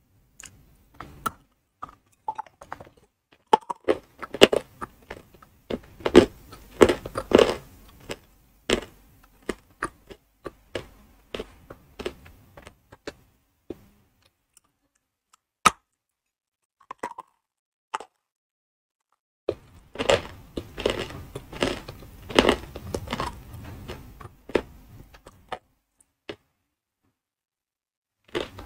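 Edible chalk (ayilo) being bitten and crunched close to the microphone: sharp cracking bites and gritty chewing in two long runs, with quiet pauses between them.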